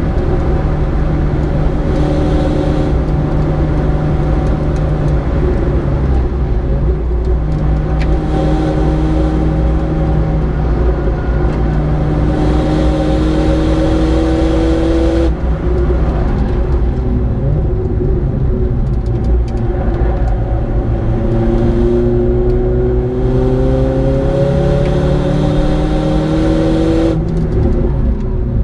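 Mercedes-AMG A 45's turbocharged 2.0-litre four-cylinder running hard at high track speed, heard from inside the cabin over steady tyre and wind noise. The engine note rises in long pulls and breaks off at gear changes as the car shifts down from sixth to fourth.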